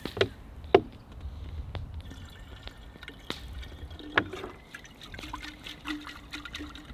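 Water poured from a large plastic bottle into a glass carafe, trickling and splashing. A couple of sharp knocks come in the first second, the loudest just under a second in.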